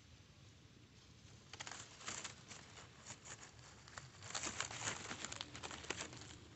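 Close crinkly rustling and crackling from hands handling gear near the microphone, in two spells: a short one about a second and a half in and a longer one from about four seconds.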